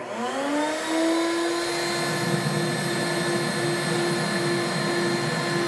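A router mounted in a router table spins up, its whine rising for about a second and then holding steady at full speed. From about two seconds in, a rougher, lower noise joins as a board is fed along the fence past the bit in a jointing test cut.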